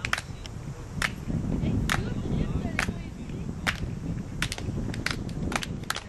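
Sharp hand claps over a low rumble: slow at first, about one a second, then quickening in the last two seconds, the rhythmic clapping that goes with a long jumper's run-up.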